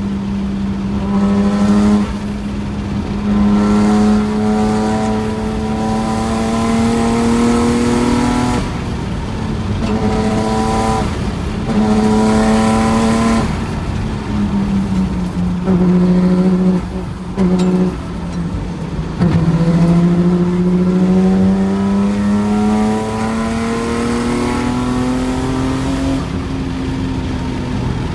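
Nissan Skyline's RB26DETT twin-turbo straight-six, exhausting through an active silencer, pulling hard through the gears. The engine note climbs in pitch over several pulls, dropping at each gear change, with the longest pull starting about two-thirds of the way in.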